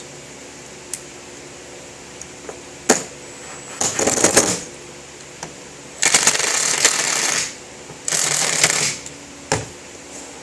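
A few clicks and knocks of parts being handled, then a power drill running in two short steady bursts, about six and eight seconds in, driving screws into the wooden brace.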